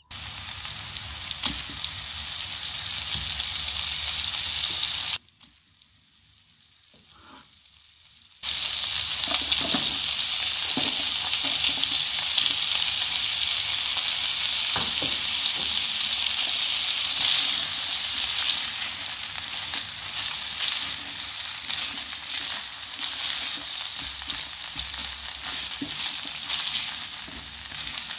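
Meatballs, diced bacon and zucchini sizzling in oil in a non-stick frying pan, with a utensil stirring and clicking against the pan now and then. The sizzle cuts out for about three seconds partway through, then returns louder.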